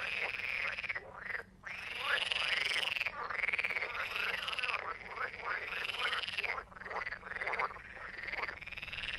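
Frog croaking: a run of rasping calls, each rising and falling in pitch, in several long bouts with brief pauses between them.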